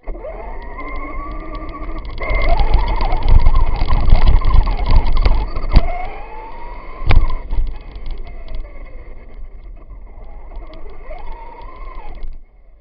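Traxxas Stampede 2wd RC truck driving, heard from a camera mounted on the truck: its electric motor whines up and down with the throttle over a rattling rumble of the truck on pavement and snow, loudest in the middle, with two sharp knocks. The sound cuts off suddenly near the end.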